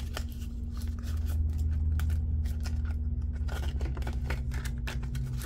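Paper banknotes rustling and crinkling as they are handled and tucked into a plastic binder pocket, with quick small clicks and scrapes of the pages being turned. A faint steady low hum runs underneath.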